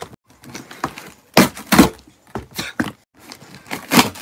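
Paper and cardboard packaging being bitten and torn off a heavy box with the teeth: several sharp ripping, crunching tears in a row, one of the loudest near the end.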